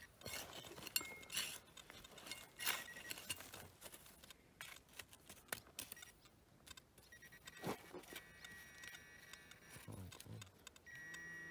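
Digging tools scraping and clicking through dry, clodded soil in a small hole. A pinpointer's steady high tone sounds on and off, longest in the last few seconds.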